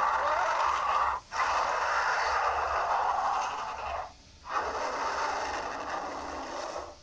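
Baryonyx dinosaur sound effect: three long, hissing, rasping growls in a row, split by short pauses about a second in and about four seconds in.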